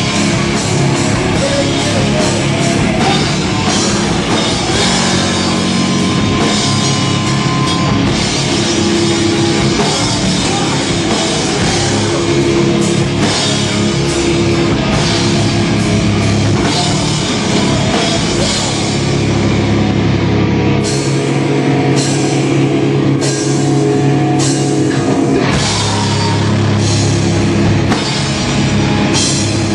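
A hardcore band playing live and loud: distorted electric guitars, bass and a pounding drum kit. About two-thirds of the way through, the deepest bass thins out and heavy drum hits land about once a second.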